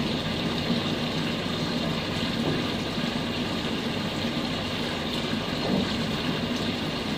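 Electric fan running steadily: an even whoosh with a constant low hum underneath.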